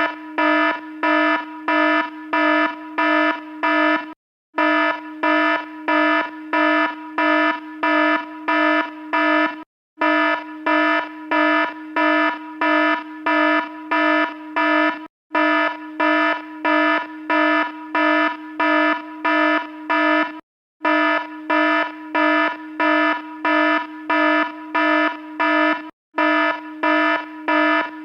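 Electronic alarm sound beeping about twice a second on one steady, buzzy pitch. The beeps come in runs of about five seconds, each run broken by a short pause.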